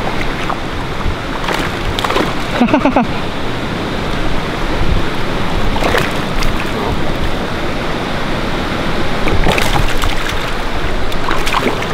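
Steady rush of water and wind noise at a waterside, with waves lapping and wind on the microphone.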